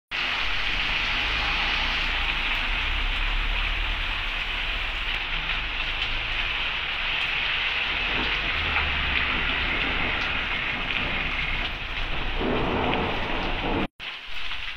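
Heavy rain falling steadily, with low rumbling beneath it. The sound cuts out for a moment near the end and returns quieter.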